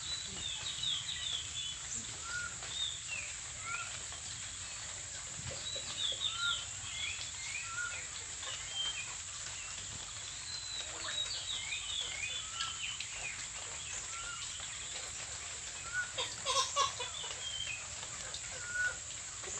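Small birds chirping and calling throughout, with one short note repeated every second or two, over a steady high insect drone. A brief louder burst comes about three-quarters of the way through.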